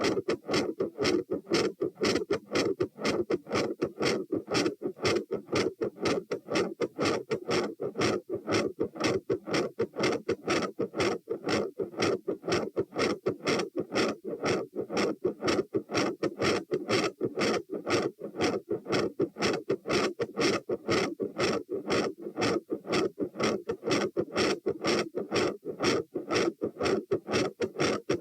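Human heart sounds recorded at the tricuspid position with the subject standing. The heart is beating fast and regularly at 120 beats a minute, with a loud second heart sound (S2) and a murmur filling the gaps between the beats.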